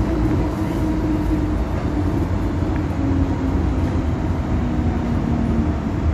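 MTR M-Train electric multiple unit heard from inside the car: a steady rumble of wheels and running gear with a motor whine that falls in pitch in steps as the train slows alongside a station platform.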